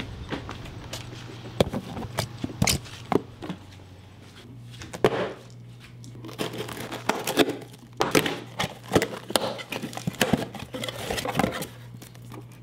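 A cardboard shipping box being opened by hand: tape tearing, flaps pulled open and cardboard crinkling, with many short knocks and clicks from handling. A steady low hum runs underneath.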